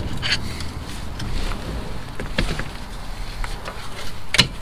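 Scattered sharp clicks and knocks of hand tools and metal fittings while the gear shift cables are disconnected from an MG TF, the loudest knock near the end, over a low steady hum.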